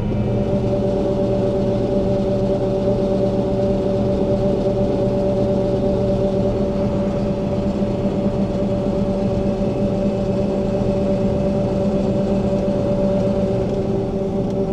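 Combine harvester running steadily while harvesting corn, a continuous mechanical drone with a steady hum, heard from inside the cab.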